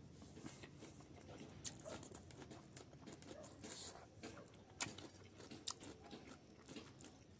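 A person chewing a mouthful of rice eaten by hand, close to the microphone: faint, wet mouth clicks and smacks at irregular moments, with one sharper click a little past halfway.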